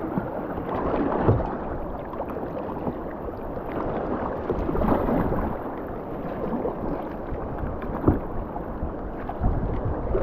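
Rushing river water as a kayak runs whitewater, with a few sharp splashes or knocks, the loudest about a second in and near 8 seconds, and wind on the microphone.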